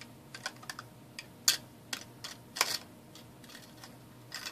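Light clicks and clinks of metal tweezers against small metal battery terminals and a clear plastic tub as the terminals are picked out, about a dozen short taps with the loudest about one and a half and two and a half seconds in.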